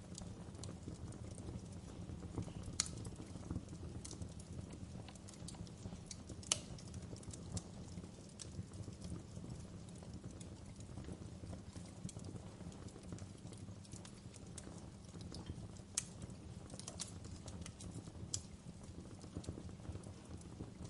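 Wood fire crackling in a fireplace: a steady low rumble of flame with irregular sharp pops of burning logs, the sharpest about a third of the way in.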